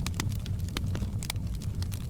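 Fireplace fire crackling: many quick, sharp pops and snaps, several a second, over a steady low rumble.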